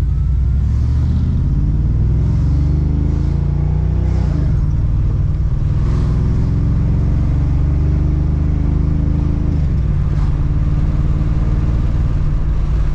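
Car engine and exhaust under hard acceleration: the engine note climbs in pitch, falls sharply about four seconds in as it shifts up, climbs again, and falls once more near ten seconds in.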